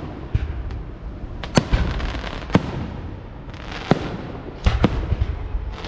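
Fireworks going off: sharp cracks and pops at irregular intervals, about seven in all, over a steady low rumble.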